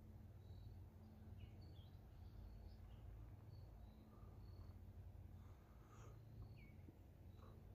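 Near silence: faint outdoor ambience, a low steady rumble with scattered soft high chirps and a few short falling bird calls.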